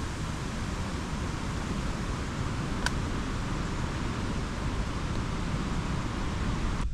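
Steady wind blowing across the microphone, a continuous rushing hiss with low, fluttering buffeting, and a single brief click about three seconds in.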